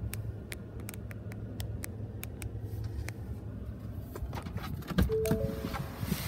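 Steady low rumble inside a Ford F-150's cab, with scattered light clicks of handling. About five seconds in, a door clunks open and a three-note electronic chime sounds.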